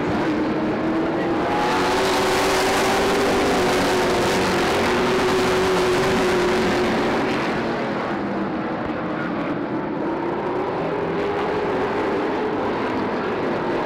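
Engines of a pack of Super Stock race cars running laps on an oval track, pitch rising and falling through the turns. The sound swells as the pack passes close by, about 2 to 7 seconds in, then eases as the cars move off.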